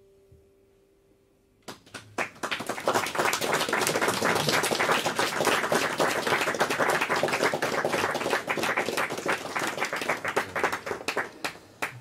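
The last held note of the music fades away, then a small audience breaks into applause about two seconds in. The clapping stays dense and then thins out near the end.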